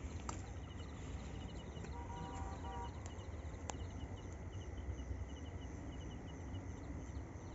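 Night insects chirping in short, evenly repeated pulses, with a steady thin high tone beside them, over a low rumble. A few faint clicks and a brief faint hum about two seconds in.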